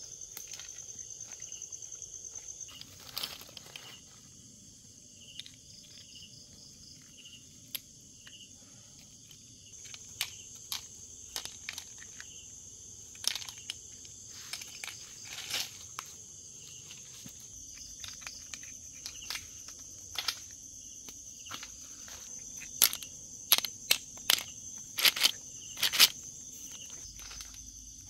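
Steady high-pitched chirring of insects, with irregular crunches and rustles over it. A run of sharper, louder crunches comes near the end.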